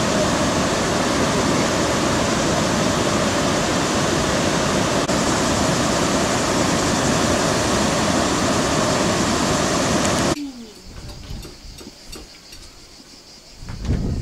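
Water rushing over a low river weir, a steady, loud, even rush that cuts off abruptly about ten seconds in. After that only faint insect chirring and a brief low rumble near the end.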